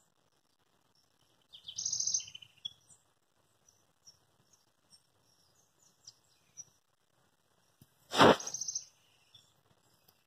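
Birds chirping in the background with short high calls, a louder cluster of calls about two seconds in. About eight seconds in comes a sharp loud noise, followed by more high calls.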